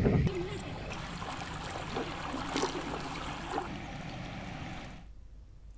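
Floodwater of a swollen river rushing past, a steady noisy hiss with a few faint wavering sounds in it; it cuts off about five seconds in.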